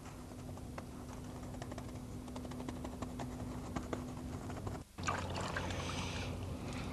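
Wet sponge scrubbing hull cleaner over a boat's fibreglass transom: a fast, irregular patter of small ticks and crackles over a low steady hum. About five seconds in it breaks off and gives way to a steadier hiss.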